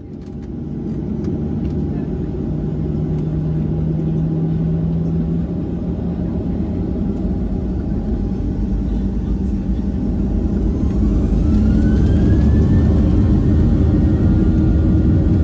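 Boeing 737-700's CFM56-7B jet engines spooling up to takeoff thrust, heard inside the cabin over the wing. A steady low rumble builds louder, and a rising whine comes in about eleven seconds in as the takeoff roll begins.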